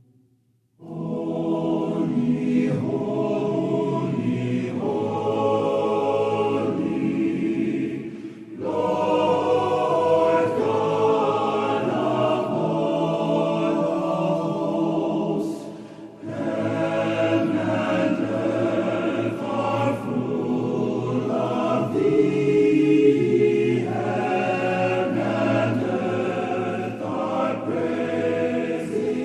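Choir singing in a slow sacred or gospel style, with short breaks between phrases about 8 and 16 seconds in.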